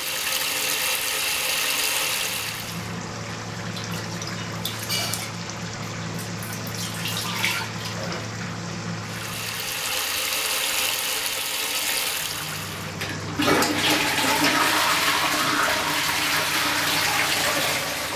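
Water running with a steady hiss that stops and starts, with a low steady hum in the quieter stretch between. About thirteen seconds in, a toilet flushes, its rush of water the loudest part, going on until near the end.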